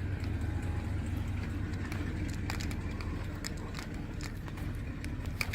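Steady low hum of an RV's onboard generator engine running, with scattered light clicks and ticks over it.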